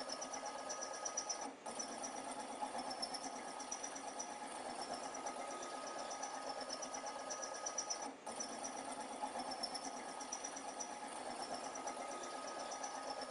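Packaging machine's vibratory feeder trays running, a steady mechanical hum with a fast fine rattle of nuts moving along the trays. It drops out briefly about a second and a half in and again about eight seconds in.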